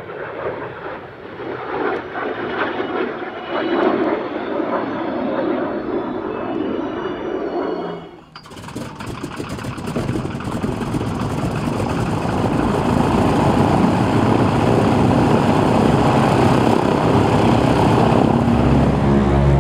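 A jet aircraft flying past, a steady rushing noise. About eight seconds in the sound cuts abruptly to a Noorduyn Harvard's nine-cylinder radial engine running on the ground with its propeller turning, growing louder over a few seconds and then holding steady.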